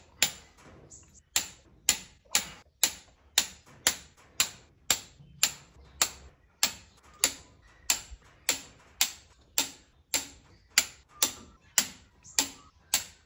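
Steady, evenly spaced ticking, about two sharp ticks a second, like a clock.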